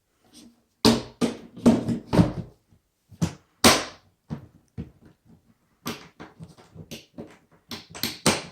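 Pedalboard case lid being handled and fitted on: a run of hard knocks and clunks, loudest in a cluster about a second in and once near four seconds, then lighter clicks and taps toward the end.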